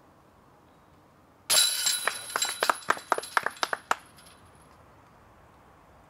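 A thrown golf disc strikes the hanging chains of a disc golf basket about a second and a half in, setting off a jangle of metal chains that breaks into a run of separate clinks and settles after about two and a half seconds.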